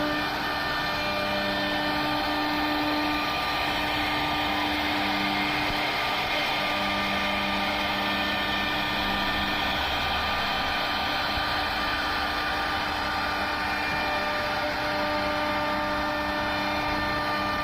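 CNC router running steadily while carving a wooden door panel: a constant machine hum with several held tones that hardly change.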